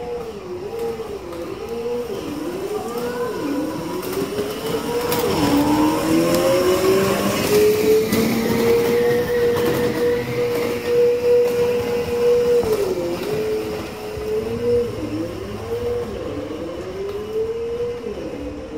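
Simulated engine sound from an ESS-One engine sound simulator playing through the speaker of a kids' electric ride-on car. The engine note blips up and down several times, then climbs in one long rise, holds steady for a few seconds, drops, and blips up and down again near the end.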